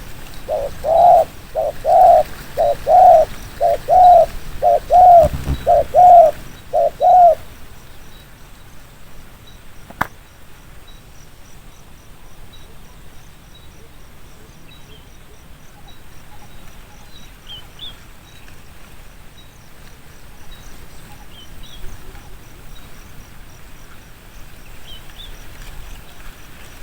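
Spotted dove cooing: a quick run of about eight loud coos, one under a second apart, over the first seven seconds. After that come faint chirps of small birds and a single click about ten seconds in.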